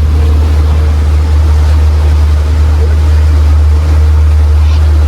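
Tour boat's engine running steadily under way: a constant low drone with water and wind noise over it, and a faint steady whine that fades out near the end.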